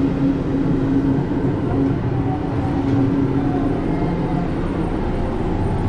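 Cabin noise of the Disney Resort Line monorail running between stations: a steady low rumble with a steady hum.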